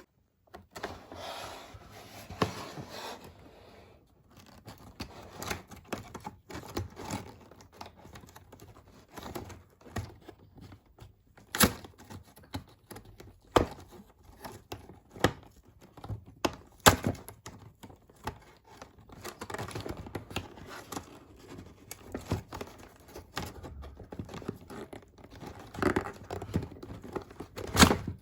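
Toy packaging being opened by hand: cardboard and plastic tearing and crinkling, with many sharp clicks and knocks.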